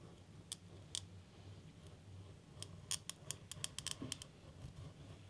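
Pencil-grip glass cutter's small wheel scoring a line across a sheet of stained glass, a faint scratching with sharp ticks, a couple early and a quick run of them past the middle. The score breaks the glass's surface so the sheet can then be snapped along it.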